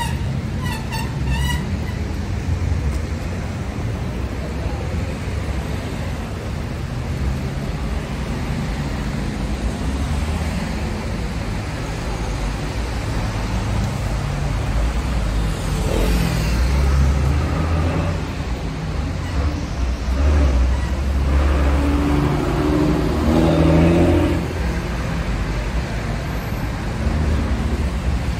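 Steady city road traffic on a wet avenue: a low engine rumble with the hiss of tyres on the wet road, and cars passing, the loudest passes in the second half.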